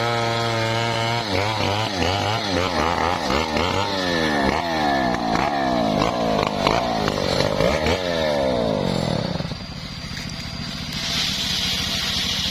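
Stihl chainsaw running at steady high revs in the cut, then revved up and down again and again with the bar out of the wood, dropping back to a lower idle about three-quarters of the way through. A steady high hiss comes in near the end.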